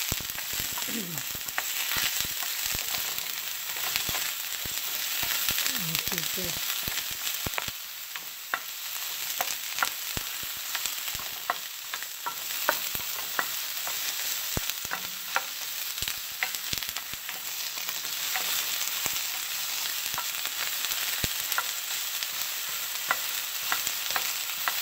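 Sliced onion sizzling steadily as it fries in hot cooking oil, with frequent sharp clicks and pops over the hiss. The onion is being cooked until it begins to caramelize.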